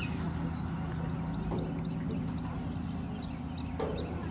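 Ballpark crowd background: faint scattered voices of spectators over a steady low hum, with no distinct event standing out.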